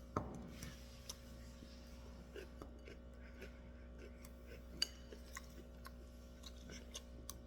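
Quiet room with faint, scattered small clicks and taps, and a soft thump just after the start.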